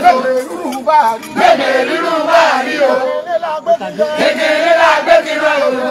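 A crowd singing and chanting together, many voices at once.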